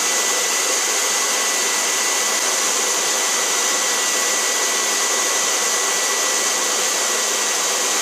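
Hair dryer running steadily, a constant blowing rush with a thin steady whine through it.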